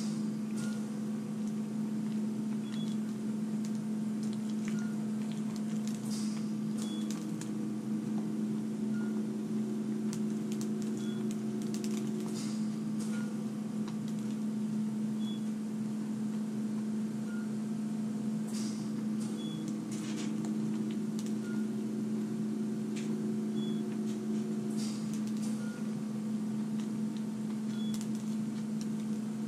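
Steady low electric hum, like an appliance or fan running, with faint ticks about every two seconds. A few short smacking clicks of someone eating a donut come through it.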